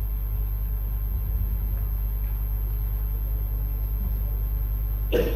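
Steady low hum and rumble of the assembly hall's microphone and sound system in a pause between oaths, with one brief pitched sound near the end.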